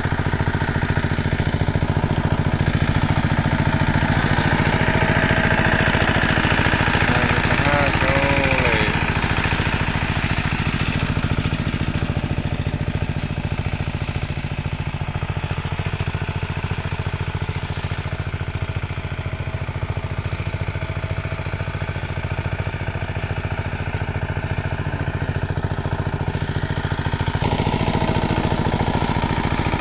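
Small engine of a farm machine running steadily at a constant speed.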